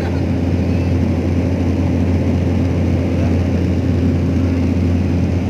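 Steady drone of a small high-wing propeller airplane in cruise, heard inside the cabin: an even low engine and propeller hum that holds level without change.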